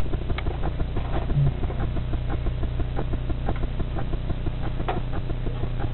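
Handling noise close to the microphone: scattered small clicks, knocks and rustles over a steady low hum, with one brief low tone about a second and a half in, as the camera is set and an acoustic guitar is picked up.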